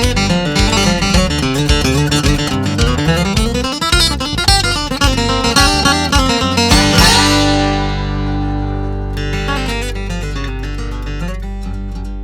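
Country music, the instrumental ending of a song: busy acoustic guitar picking, then from about seven seconds in a final chord rings out and slowly fades.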